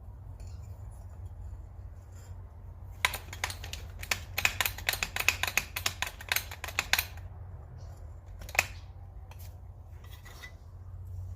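Sharp metal clicks and taps from working an adjustable wrench in a small hydraulic press: a quick run of them about three seconds in, lasting some four seconds, then a single click and a few fainter ones, over a steady low hum.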